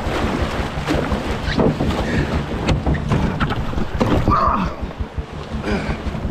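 Fast creek water rushing around a canoe, with irregular splashing paddle strokes and knocks as the canoe is paddled hard through strong current.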